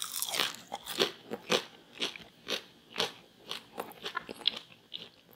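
Close-up chewing of a crispy fried potato cake: loud crunches, about two a second.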